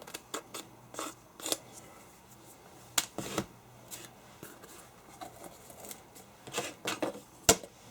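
Putty knife scraping and clicking as filler is pressed into cracks in a wooden door threshold: short scrapes and clicks at irregular intervals.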